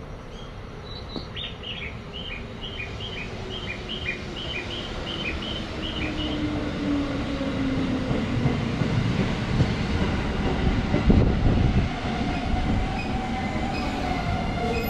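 An orange-and-green-striped commuter electric train arrives and brakes alongside the platform. Its motor whine falls in pitch as it slows, and the wheel rumble builds to its loudest as the cars pass close, then eases. A high chirping repeats about twice a second during the first few seconds.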